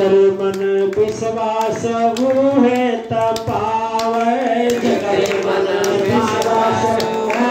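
A man singing a Hindi devotional bhajan into a microphone in long, held, gliding phrases, with the congregation clapping in time.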